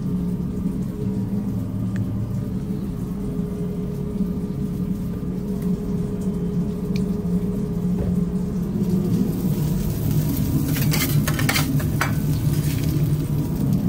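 Cheese-topped burger patties sizzling on a flat-top griddle, a hiss with quick scratchy crackles that swells for a few seconds near the end. Under it, a steady low hum throughout.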